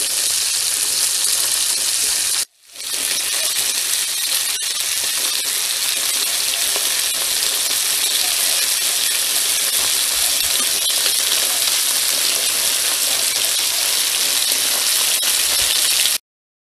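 Salmon steaks and vegetables sizzling in an aluminium foil tray on a grill: a steady, loud hiss with a few faint crackles. It cuts out for a moment about two and a half seconds in, then stops abruptly near the end.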